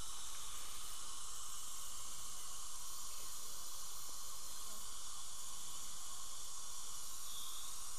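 A steady, even hiss with no breaks or distinct events.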